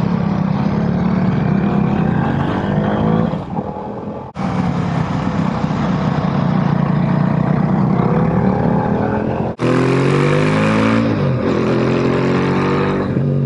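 Motorcycle engine running under throttle with wind rush, its pitch climbing and dropping as it revs through gear changes. The sound cuts abruptly twice, about four and nine and a half seconds in.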